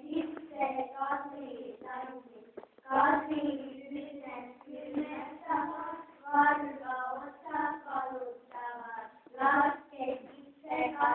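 A group of children singing together in a hall, a simple tune broken into short sung phrases with some held notes.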